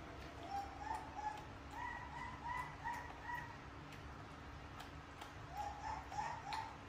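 A run of short, evenly pitched animal calls, two or three a second, in two bouts: the first from about half a second to three and a half seconds in, the second near the end. Faint light clicks occur throughout.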